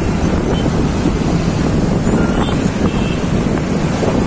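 Wind buffeting the microphone while travelling in a moving vehicle, a steady low rumble with road and engine noise underneath.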